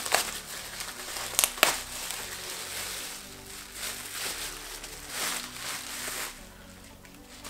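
Plastic or paper packaging crinkling and rustling as a part is unwrapped and handled, with a few sharp crackles in the first two seconds. The rustling dies away about six seconds in.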